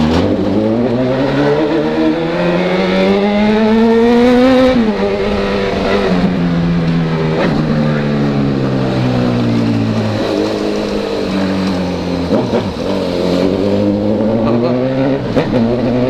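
Honda CB1000 inline-four motorcycle engine with a four-into-one exhaust, accelerating. Its pitch climbs for about four and a half seconds, drops sharply at an upshift, then holds and eases off, and climbs again near the end.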